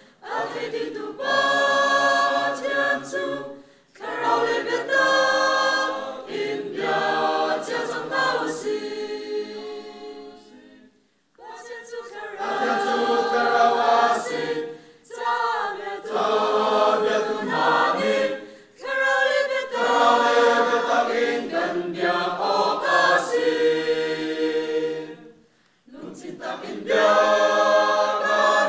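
Mixed choir of men's and women's voices singing a cappella, in phrases broken by short pauses, the longest about eleven seconds in.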